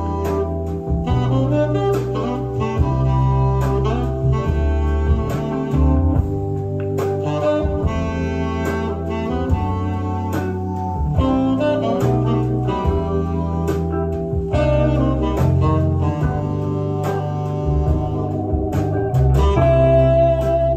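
A song with strong bass and a steady beat, played back from a Type II cassette on a Sony TC-K88B deck and heard through hi-fi speakers.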